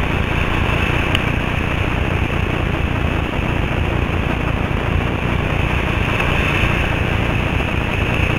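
Whitewater rapids rushing steadily, with a single short click about a second in.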